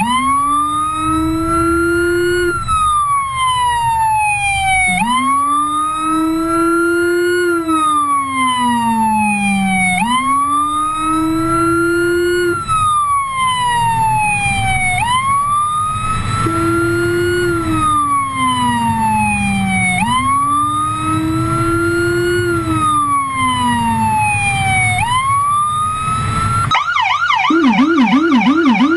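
Police siren in a slow wail, each rise and fall lasting about five seconds, layered with a Whelen Howler's deep low-frequency tone sweeping in step with the higher primary tone. About 27 seconds in, both switch to a fast yelp. Road noise from the moving patrol car runs underneath.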